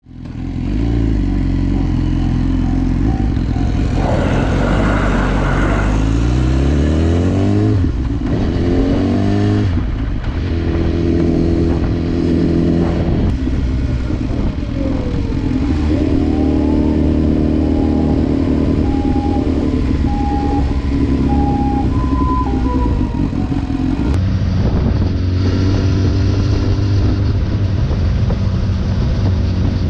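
Large motorcycle's engine running under way, its pitch climbing in repeated ramps as it accelerates up through the gears a few seconds in, then holding a steady cruise, with wind rushing past. The sound breaks off abruptly several times where ride segments are cut together.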